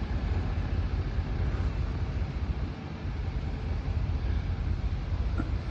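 Engine of heavy tree-moving equipment running steadily with a low rumble.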